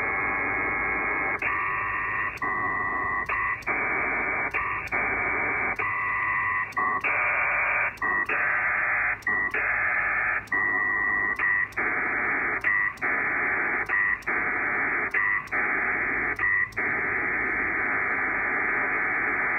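Pactor III data signal heard over an HF radio: a dense, hissy band of data tones, chopped by short gaps a little over once a second as packets and acknowledgements go back and forth on the WinLink link.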